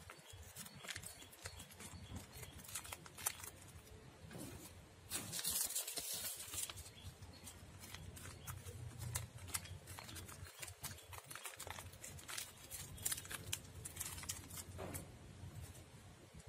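Crackling and rustling of rice paper and fresh herbs being handled and rolled by hand, with scattered small clicks and a louder burst of rustling about five seconds in.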